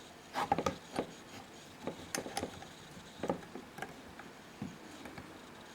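Irregular light clicks and taps of steel reverse-action soldering tweezers and small metal items being handled, most of them bunched together about half a second to a second in.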